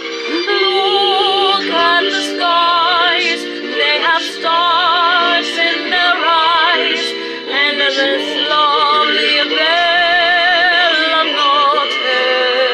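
A woman singing a slow ballad with wavering vibrato and long held notes, along with recorded backing music.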